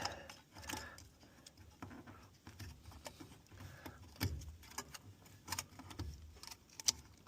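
Scattered light clicks and knocks at irregular times as hands work at the plastic bottom valve of an IBC water tote, pulling out its factory seal.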